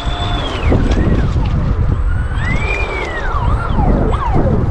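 Volantex Atomic SR85 RC catamaran's brushless motor whining, its pitch gliding up and down as the throttle is worked: held high at first, dropping sharply about a second in, then a long rise and fall and several quick swoops. Wind rumbles on the microphone underneath.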